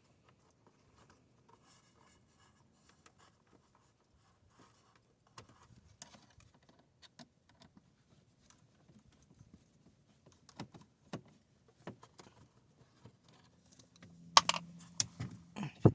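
Faint, scattered clicks and taps of hands and tools working on plastic dashboard trim, with a few sharper, louder clicks near the end.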